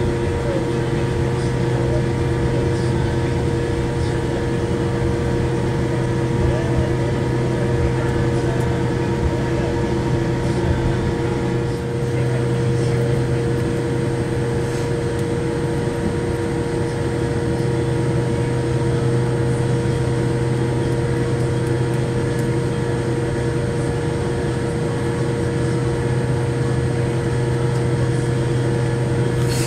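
Steady cabin noise inside a Boeing 787 Dreamliner taxiing in after landing: the engines at idle and the cabin air system make an even hum with several steady tones, low and mid-pitched, plus a faint high whine.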